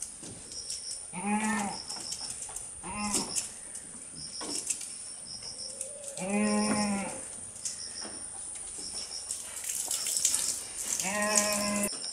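Goats bleating four times, each call a steady, level-pitched bleat; the third, about a second long, is the longest. Short high chirps repeat in the background throughout.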